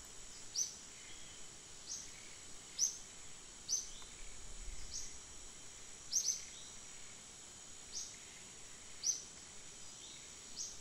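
A small bird calling over and over outdoors: short, high chirps that dip slightly in pitch, about one a second, over faint steady background hiss.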